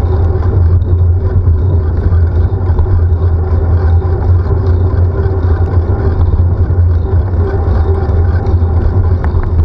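Loud, steady low rumble of wind and road vibration on a handlebar-mounted camera while cycling along a wet street, with car traffic running alongside.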